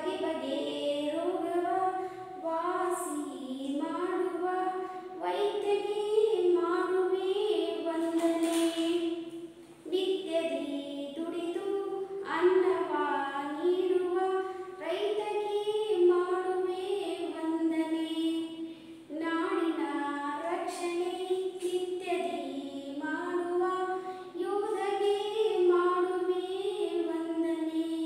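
A woman singing a Kannada children's poem unaccompanied, in one voice with held notes, pausing for breath between phrases.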